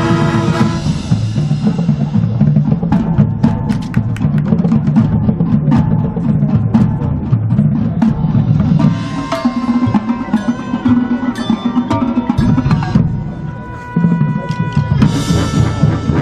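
Marching band percussion section playing a drum passage, dense drum strokes with bass drum underneath, as the brass cuts off just after the start. Ringing pitched notes sound over the drums from about nine to thirteen seconds in.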